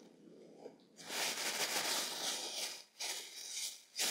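Thin plastic bag crinkling and rustling as it is handled and pulled open. It starts about a second in and comes in two or three spells.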